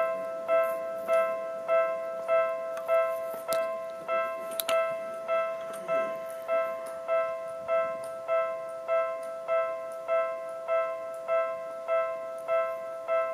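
Railway level crossing warning bell ringing steadily, one unchanging electronic clang repeated a little under twice a second, with a faint passing-train rumble underneath around the middle.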